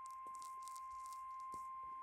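NOAA Weather Radio warning alarm tone, a steady single-pitched 1050 Hz tone sent as the weekly test, received over a radio scanner with faint crackles of static.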